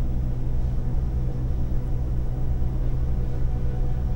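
A steady low rumbling hum that holds even throughout.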